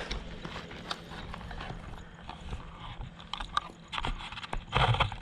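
Irregular clicks and knocks from a laser tag gun with a GoPro mounted on it as it is handled and carried, getting louder and busier near the end.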